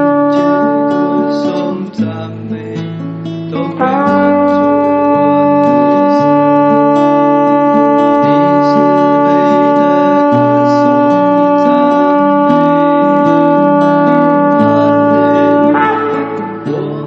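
Music: a horn holds one long steady note for about twelve seconds, starting about four seconds in and stopping near the end, over plucked guitar and a bass line stepping between notes. A shorter horn note fades out in the first two seconds.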